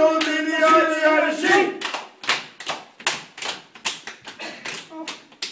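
Men's choir singing a sustained note that breaks off about two seconds in, followed by a run of hand claps, about four a second.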